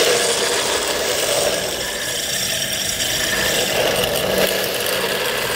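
Electric RC drift car running on rough asphalt: its motor and hard plastic wheels make a steady rattling, scrubbing noise, loudest just as it passes close at the start.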